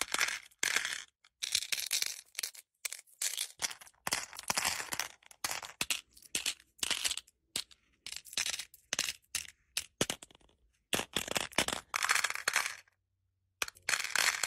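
Glass beads and pearls being stirred and dropped by fingers in a clear plastic compartment organizer box, making repeated bursts of clinking and rattling, with a short pause about a second before the end.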